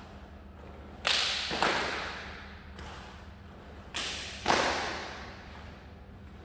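Taekwondo uniforms snapping sharply as three athletes kick in unison: two pairs of cracks about half a second apart, with a fainter one between, each ringing on in the hall's echo.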